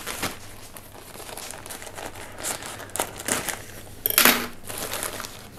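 White packing paper wrapped around a young plant crinkling and rustling as hands handle it to unwrap it, in irregular crackles with a louder crinkle a little after four seconds in.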